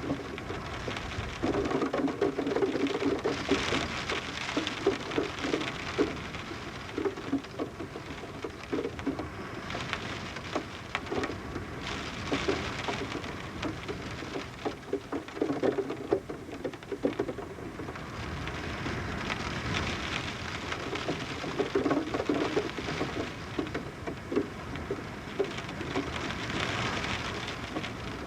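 Rain pattering on a window glass heard from indoors, with water dripping off the roof, the patter thickening and thinning every few seconds.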